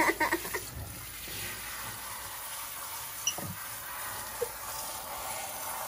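Water from a kitchen sink's pull-down sprayer running steadily, a continuous hiss of spray splashing into the sink.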